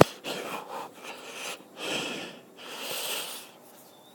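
A sharp knock, then several short rubbing, breath-like noises close to the microphone: a phone being handled and moved into position on a bicycle's handlebars.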